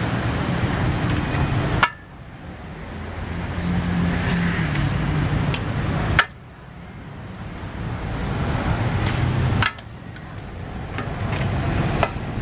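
Metal spatulas scraping and clicking against a large steel pan of stir-fried noodles, over steady street traffic noise. Three times the sound cuts off abruptly with a click and then swells back up.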